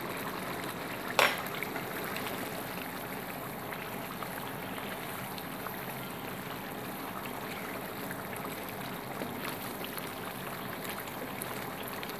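Chicken curry simmering in a wide pan, a steady bubbling hiss, with a wooden spatula stirring through it. A single sharp knock about a second in.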